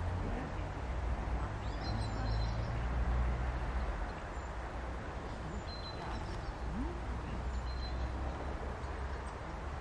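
Steady low outdoor rumble with a few brief, faint high chirps from small birds, about three of them.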